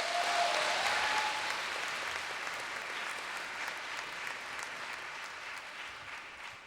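Audience applauding, fading out gradually toward the end.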